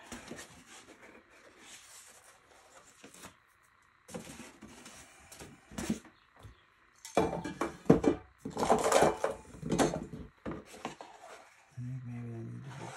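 Hard objects clattering and knocking together, busiest and loudest from about seven to ten seconds in, with a short low hum near the end.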